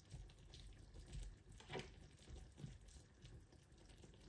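Near silence: room tone with a few faint, soft clicks.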